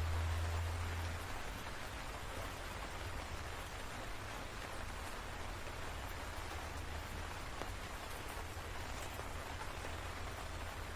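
Steady rain falling, a dense hiss with scattered drop ticks. A low rumble is loudest at the start and drops off after about a second.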